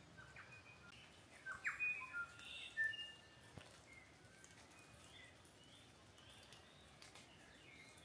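Songbird song: a quick run of clear whistled notes and sharp chips about one and a half to three seconds in, then fainter scattered notes, over a low steady hiss.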